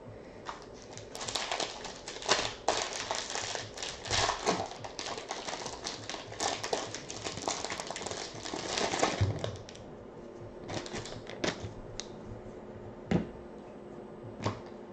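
Foil wrapper of a trading-card pack crinkling and tearing as it is ripped open, a dense run of crackles lasting about eight seconds. After that come a few scattered clicks as the cards are handled.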